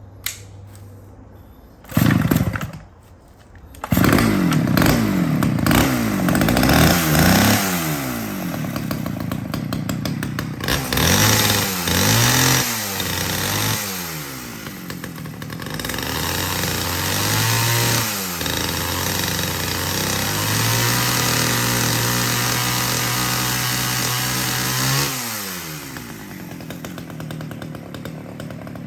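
Petrol two-stroke chainsaw: a brief burst of engine sound about two seconds in, then it catches at about four seconds and runs, revved up and down again and again. It is held at high revs for several seconds before dropping back to idle near the end.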